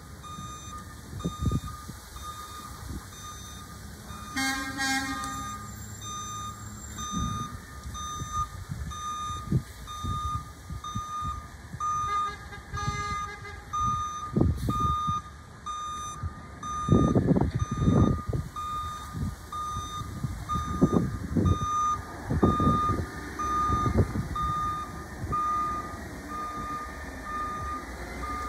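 Garbage truck's backup alarm beeping steadily, about once a second, as the truck reverses. Its diesel engine revs in several loud surges over the second half.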